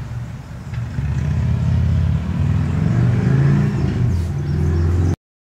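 A motor vehicle's engine running, getting louder about a second in and then holding steady, before cutting off suddenly near the end.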